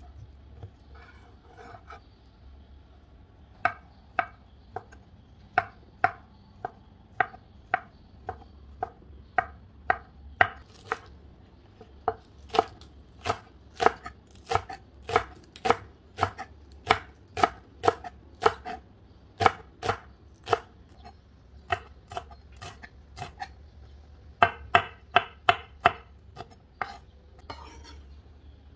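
Chef's knife chopping on a wooden cutting board, dicing sausage and slicing spring onion: sharp knocks of the blade on the board, about one or two a second, with a quicker run of chops late on.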